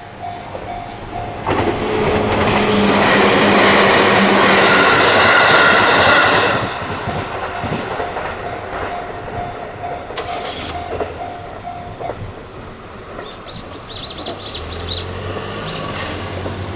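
A train passes through a Japanese railway level crossing with a loud rush of wheels and a whining motor for about five seconds. The crossing's warning bell rings in a steady repeating ding before the train and again after it, then stops about twelve seconds in, once the train has cleared.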